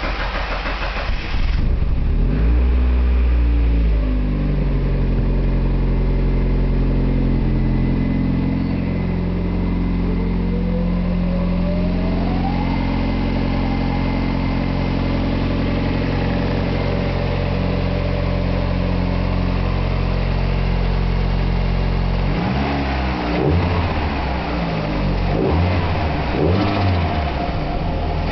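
Turbocharged Mazda Miata's four-cylinder engine just after its first start: it picks up revs briefly, settles to a steady idle for about twenty seconds, then the throttle is blipped several times near the end. The noise on these blips is what the owner is unsure of: turbo flutter or compressor surge.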